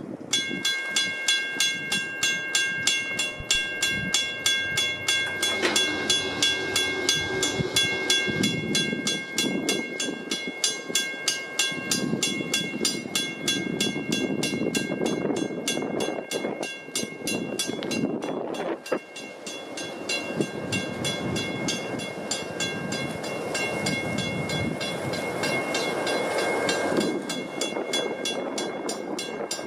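Railroad crossing warning bell, a Western Cullen Hayes Mbell, starts ringing with rapid, evenly spaced strokes, while a train rumbles past the crossing. The bell drops out briefly about two-thirds of the way through, then rings on.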